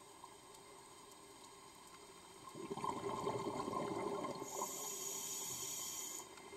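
Scuba diver breathing through a regulator underwater: a rush of exhaled bubbles starting about two and a half seconds in, then the hiss of an inhalation through the regulator near the end.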